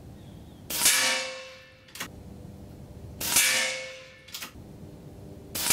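Three shots from an AGT Uragan 2 .25-calibre PCP bullpup air rifle, about two and a half seconds apart, each a sharp report with a ringing tail. A light click sounds between shots as the action is cycled.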